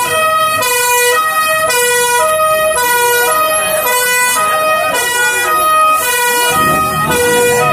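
Fire engine's two-tone siren sounding, alternating between a high and a low tone about every half second. People's voices rise under it near the end.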